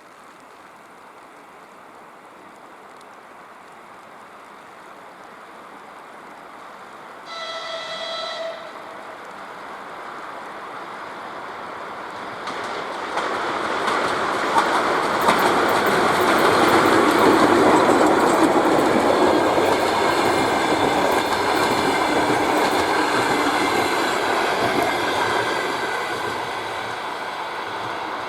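Passenger train approaching a station and passing through at speed. It sounds one short horn blast about a quarter of the way in. The rail noise then swells into a loud rush of wheels with rapid clicking over the rail joints, loudest a little past halfway, then slowly dies away.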